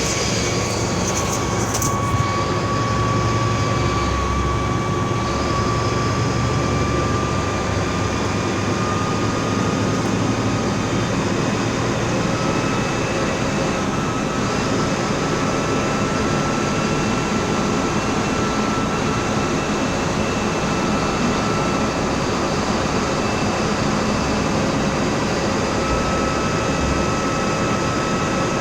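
Mercedes-Benz OF 1724L bus diesel engine running steadily, with a thin high whine over it that slowly rises in pitch.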